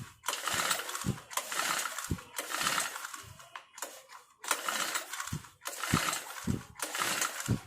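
Recoil starter rope of an Aspee Turbotech CHD T35 4S four-stroke brush cutter pulled again and again, about once a second, each pull a short whirring spin of the flywheel. The spark plug is out of the cylinder for a spark test, so the engine turns over without firing.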